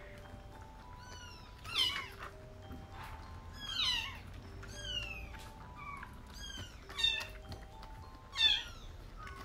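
Young kittens mewing during a bottle feed: short, high cries that fall in pitch, the loudest about two, four, seven and eight and a half seconds in. Soft background music of slow single notes plays underneath.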